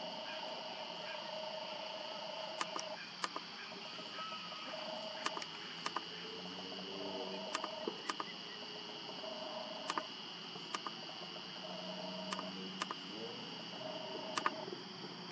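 A steady high-pitched trilling night chorus of small calling animals runs without a break. Sharp clicks come in pairs every second or two, and a lower pitched hum comes and goes.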